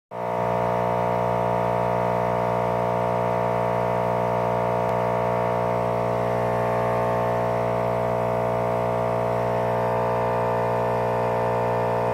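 MD Sports air hockey table blower fan motor running with a steady hum that holds many overtones. The owner suspects the motor was damaged in shipment.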